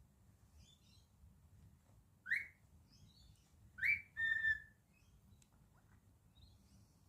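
Cockatiel whistling: two short rising whistles about a second and a half apart, the second running straight into a held note, with faint soft chirps in between.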